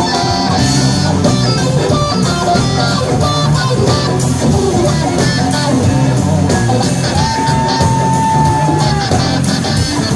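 Live rock band jamming, with electric guitar leading over keyboards, bass and drums, heard through the audience-side microphone. About seven seconds in, a lead note is held for about two seconds and slides in pitch at its start and end.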